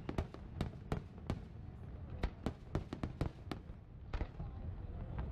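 Aerial fireworks shells bursting in a quick, irregular string of sharp bangs and crackles over a steady low rumble. The bursts thin out after about three and a half seconds.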